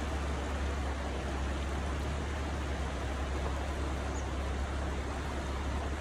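Shallow river rushing over and around rocks in a steady, even wash, with a steady low rumble underneath.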